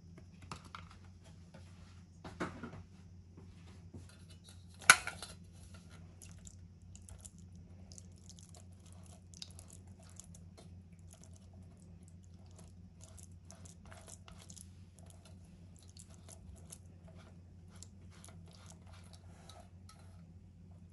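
Silicone spatula mashing and scraping silken tofu against a fine metal mesh strainer: soft squishing with many small ticks as the spatula drags on the mesh. A knock comes about two and a half seconds in, and a louder sharp knock near five seconds in. A steady low hum runs underneath.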